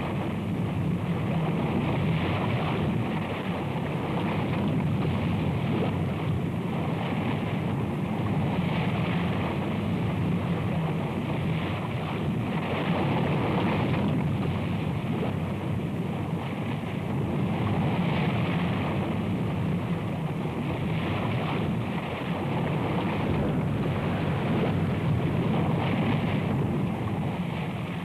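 Heavy surf breaking and churning over a rocky shore: a steady rush of white water that swells and eases every few seconds.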